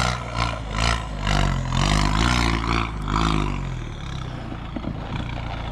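Audi A4 B7's turbocharged 2.0-litre four-cylinder engine, running through a freshly fitted 3-inch catless downpipe, revving up and back down, then dropping to a steady idle about four seconds in.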